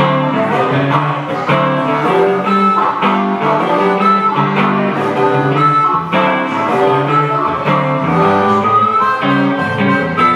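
Blues instrumental played live on harmonica and electric guitar: the harmonica plays held notes into a microphone over the guitar's accompaniment.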